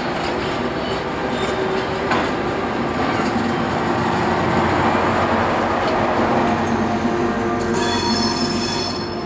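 Class 6400 diesel shunting locomotive passing close by, its engine running with a steady low drone over the rumble of the wagons. High wheel squeal from the train comes in near the end.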